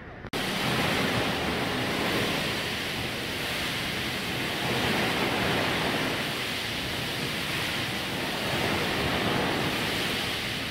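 Vřídlo hot-spring geyser spouting a jet of thermal water that splashes down into its basin: a steady, loud rush of falling water, starting suddenly a fraction of a second in.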